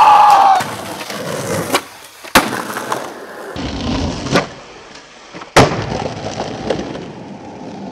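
Skateboard wheels rolling over concrete and brick paving, with four sharp clacks of the board: pops and landings. It opens with the fading end of a high, gliding squeal.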